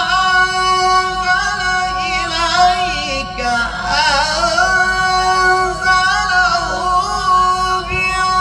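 A male qari reciting the Quran in a slow melodic chant, holding long sustained notes and breaking into quavering ornaments around the middle.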